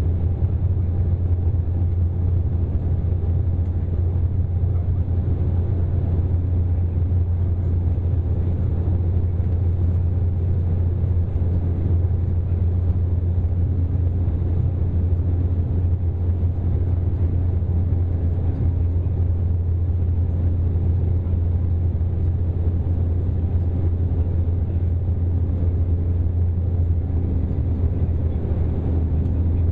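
Cabin noise of an Embraer E195 climbing after take-off, heard inside the cabin over the wing: its GE CF34-10E turbofans and the airflow make a steady, deep rumble with a faint steady hum above it.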